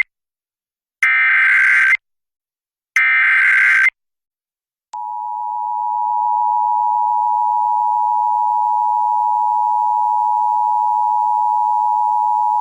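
Emergency Alert System broadcast tones. First come the last two bursts of the SAME digital header, each a harsh, buzzing data screech about a second long with a second's gap between. About five seconds in, the steady two-tone attention signal (853 and 960 Hz) begins, swells slightly over its first second or so, then holds. Together they announce a National Weather Service tornado warning.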